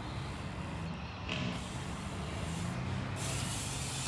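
Steady rushing of BMX tyres rolling over skatepark concrete, with a low hum underneath, growing a little louder about a second and a half in.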